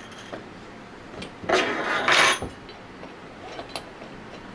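Handling noise from Anest Iwata ISP250 scroll pump parts being worked by hand during reassembly: two short scraping knocks about a second and a half and two seconds in, then a couple of faint clicks.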